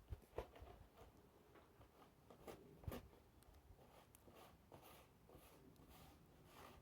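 Near silence, with a few faint clicks and rustles; the sharpest comes about three seconds in.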